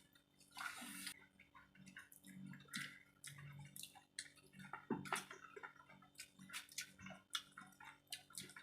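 Quiet eating sounds: irregular wet chewing and mouth smacks with small clicks, from people eating rice and curry.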